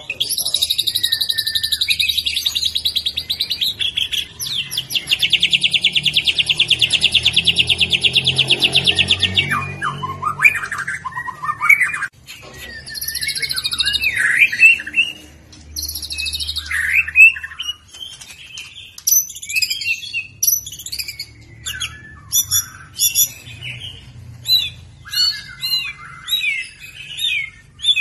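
White-rumped shama (murai batu) singing, a young spotted-plumage bird. It opens with two long, very fast trills, then moves into a string of varied loud whistled phrases and sharp chirps.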